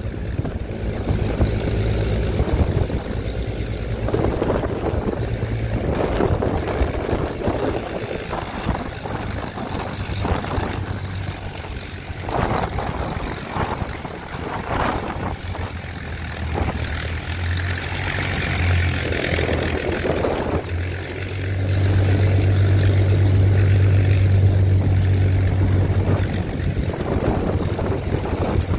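Rolls-Royce Griffon 74 V12 engine of a Spitfire XIV idling on the ground, propeller turning, a steady deep running sound. Prop blast and wind buffet the microphone with rough rushing gusts, and the sound swells for a few seconds about two-thirds of the way through.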